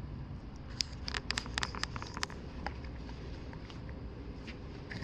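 Handling noise: a dense run of light crackles and ticks about one to two seconds in, over a steady low room hum.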